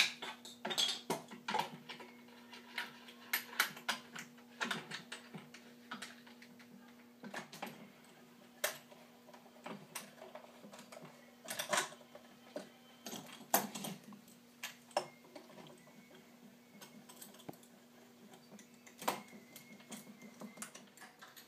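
Steel C-clamps clinking and clicking as they are set in place and their screws tightened down onto plexiglass cauls over a glued board, in irregular light taps and clicks. A faint steady hum runs underneath.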